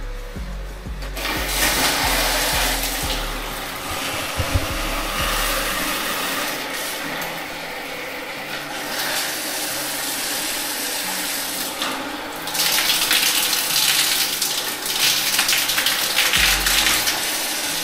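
Water rushing hard from bathroom plumbing fixtures under pressure-pump pressure during a water-pressure test. The rush grows louder about twelve seconds in.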